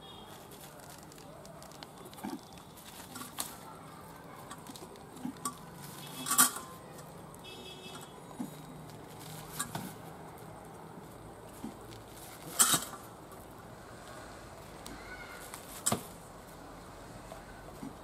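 A metal pot clinking and knocking now and then as palm toddy is poured from it into a clay pot, with a few sharp knocks standing out about six, twelve and a half and sixteen seconds in.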